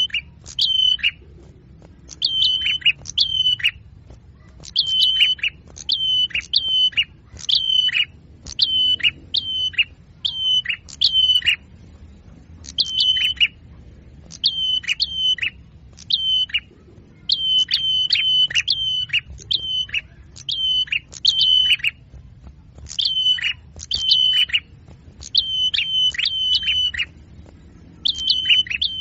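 Small songbird calling repeatedly in a bird-lure recording: short high chirps in quick clusters of three to five, each ending in a fast downward slide, with brief gaps between clusters.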